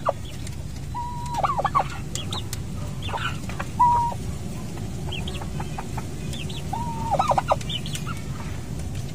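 Newly hatched turkey poults give short high peeps, while a lower clucking call, a held note breaking into a quick stutter, sounds three times from an adult fowl.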